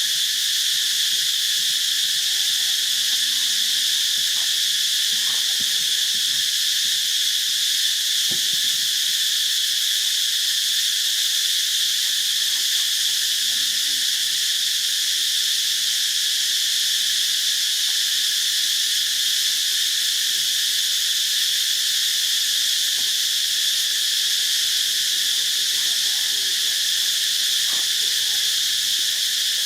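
Steady insect chorus: a continuous high-pitched shrilling that holds at an even level without a break.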